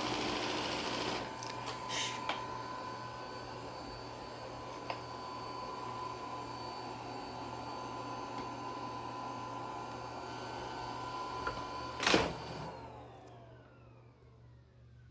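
Shark IQ self-empty base's suction motor running steadily with a high whine, sucking the dirt out of the docked robot vacuum's bin. About twelve seconds in there is a sharp knock, then the motor cuts off and winds down in a falling whine.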